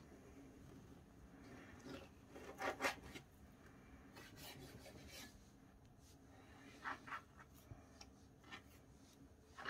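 Knife slicing raw pork into long strips on a plastic cutting board: faint rasping strokes of the blade drawn through the meat and scraping the board, in short clusters, loudest about two and a half seconds in.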